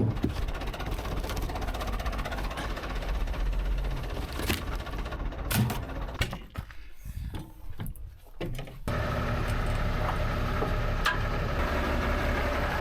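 Tractor engine running, with scattered knocks and clatter over it; after a brief quieter stretch the sound changes abruptly to a steady, even engine hum.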